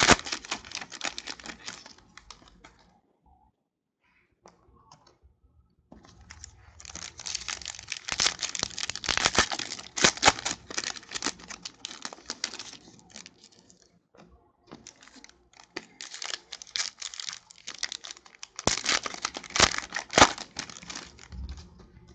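Foil wrappers of football trading-card packs being torn open and crinkled by hand, in three stretches of crackling with short pauses between them.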